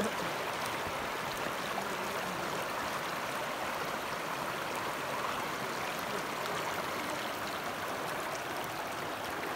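Shallow mountain creek flowing over a cobble streambed: a steady, even rush of running water.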